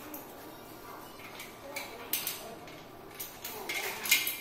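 Metal parts of a printer stand being handled and fitted together by hand: a scatter of short clinks, scrapes and rustles, busier in the last second or so.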